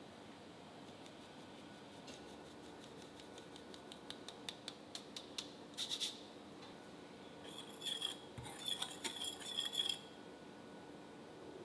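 A mesh sieve being tapped to shake flour through, making a run of light, rapid ticks, then a wire whisk clinking against a glass mixing bowl as the dry flour and baking powder are stirred together.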